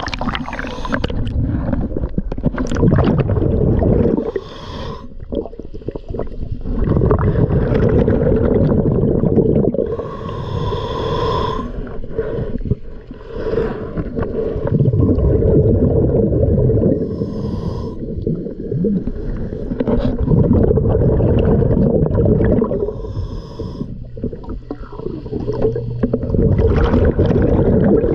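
A diver breathing underwater through a regulator. Each breath repeats in a slow cycle about every six seconds: a rumbling, gurgling rush of exhaled bubbles, then a quieter hissing inhalation.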